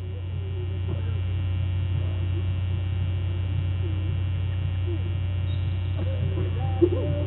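Steady low hum on the webcam's audio feed, with faint short chirps over it.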